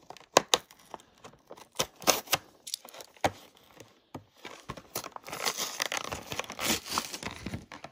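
Knife cutting and tearing into a cardboard toy box, with plastic packaging crinkling: scattered sharp clicks and scrapes at first, then a longer spell of dense rustling from about five seconds in.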